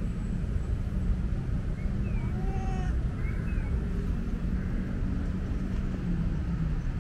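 Calico cat gives one short meow about two and a half seconds in, over a steady low rumble of traffic, with a few faint high chirps.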